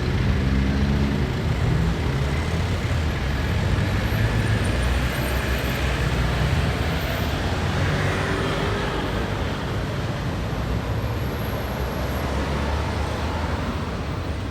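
Street traffic: car and bus engines running and passing in a steady low rumble, with a nearby engine's hum clearest in the first couple of seconds.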